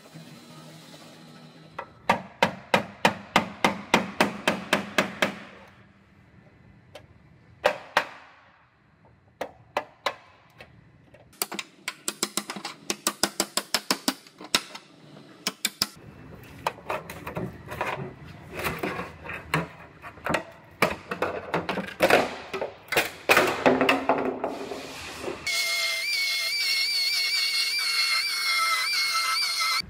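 Hammer blows on a chisel held against the sheet-metal rocker panel flange of a car body. They come in quick runs of strikes, about three a second. Near the end, a steady whine with a wavering pitch takes over.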